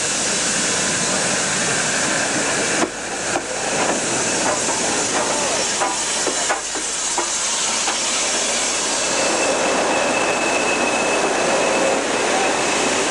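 BR Standard Class 4 4-6-0 steam locomotive 75078 and its coaches rolling past at close range as the train arrives at the station: wheels clicking over the rail joints a few seconds in, then a thin, steady high-pitched squeal through the latter part as the train slows.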